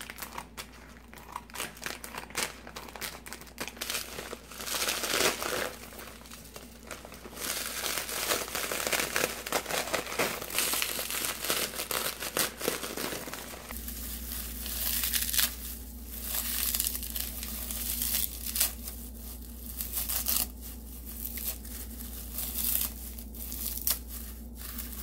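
Plastic bag of dried green laver crinkling as it is cut open with scissors and the brittle dried seaweed is pulled out into a bowl, then the dry seaweed crackling and rustling as hands tear and loosen it in the bowl.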